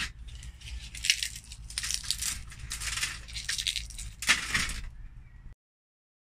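Dried banana skins and plant heads crackling and rattling on a large metal plate as a hand shuffles them, in several short bursts over a low hum. The sound cuts off suddenly about five and a half seconds in.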